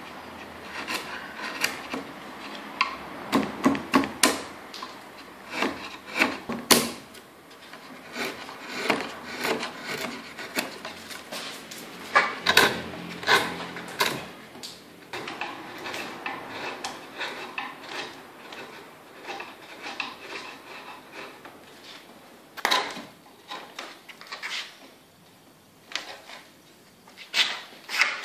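A hand blade scraping and cutting at a carved wooden picture frame: irregular scrapes and sharp knocks of the tool on the wood, coming in clusters with quieter stretches between.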